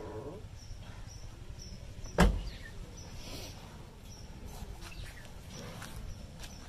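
Car door slammed shut once: a single sharp thump about two seconds in, over quiet outdoor background.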